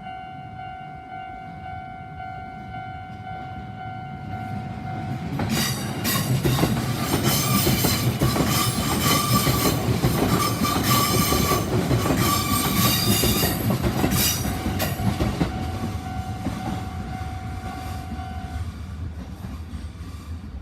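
Level-crossing warning bell ringing steadily; about five seconds in, an Izuhakone Railway Sunzu Line train passes over the crossing, loud for about ten seconds with wheels clacking over the rail joints. The bell rings on after the train and stops near the end as the crossing clears.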